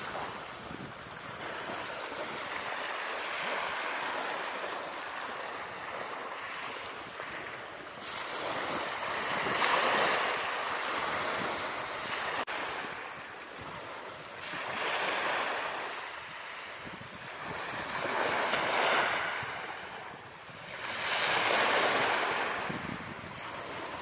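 Ocean waves sound effect: surf washing in and out, swelling and breaking every few seconds.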